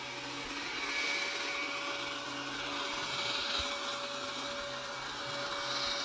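ILIFE A11 robotic vacuum cleaner running: a steady motor whir with a high hiss.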